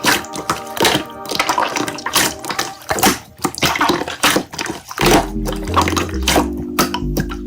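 Slime being squeezed and played with by hand: rapid wet clicks and squelches over background music, with a low bass line coming in about five seconds in.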